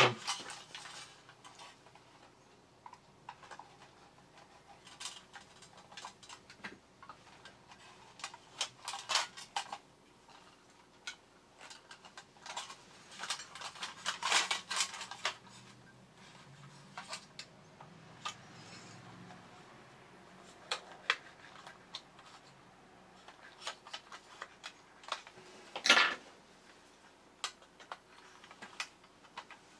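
Tinplate body of an Apollo 2000 toy robot being handled and worked with needle-nose pliers as its metal tabs are bent straight: scattered light clicks, clinks and scrapes of thin metal, with one sharper clank near the end.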